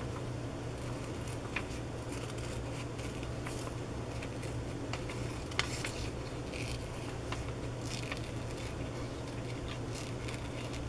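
Small scissors snipping around a magazine-paper cut-out: a run of short, irregular snips, over a steady low hum.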